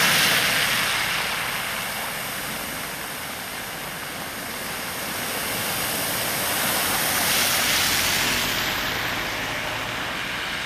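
Car tyres ploughing through shallow floodwater on a road: a steady hiss of spraying water that swells as a car goes by about seven seconds in.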